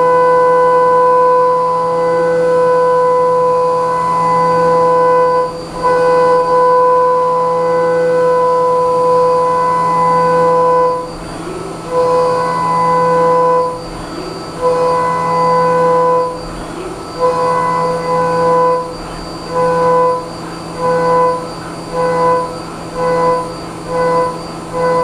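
Haas Minimill 2 CNC mill cutting a metal block with a 3/8-inch IMCO M223 Streaker end mill under flood coolant. The cut makes a loud, steady, high-pitched singing tone with overtones over the spindle hum. The tone holds through long passes in the first half, then breaks off and comes back about once a second as the adaptive-clearing toolpath takes shorter engagements.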